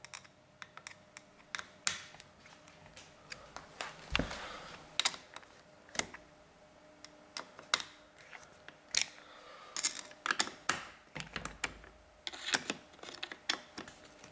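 Irregular sharp clicks and taps of a 2.5 mm hex screwdriver working the arm pivot screws of a carbon-fibre quadcopter frame, with metal fittings knocking against the frame as it is handled. A duller knock comes about four seconds in.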